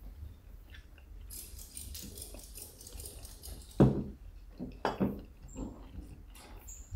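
A person chewing food with a hand over the mouth, with a stretch of soft rustling and two sharp knocks about four and five seconds in.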